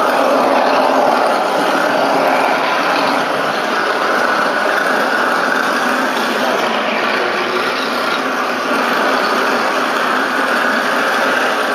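A steady, even mechanical noise, like a machine running, with no clear rhythm.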